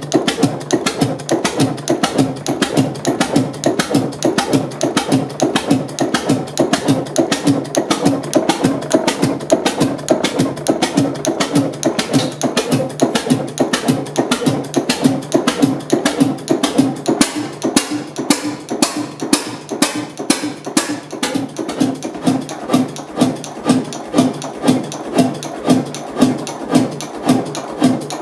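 Vintage vertical single-cylinder stationary engine running, its valve gear and mechanism making a fast, regular clacking with a heavier beat repeating about one and a half times a second.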